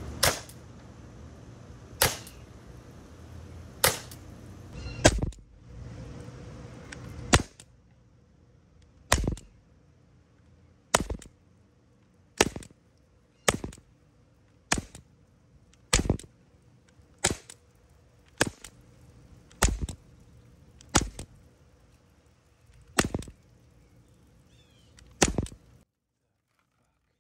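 Umarex Glock 17 Gen 5 CO2 pellet pistol firing about seventeen sharp shots, spaced roughly one to two seconds apart.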